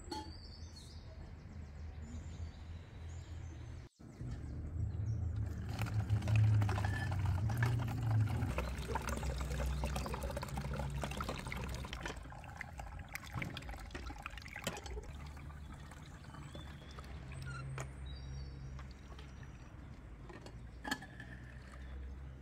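Sour orange juice poured from a glass pitcher through a mesh strainer and funnel into a bottle. It is a steady splashing pour that starts about four seconds in, is heaviest a few seconds later, and then eases to a lighter trickle.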